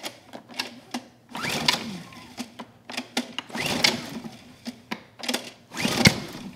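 Honda EU2000i inverter generator being pull-started on its recoil starter: three hard pulls of the cord, each a short burst of the engine turning over, with clicks between pulls. With the choke on, the engine does not catch; its carburettor is filled with fuel and flooding over.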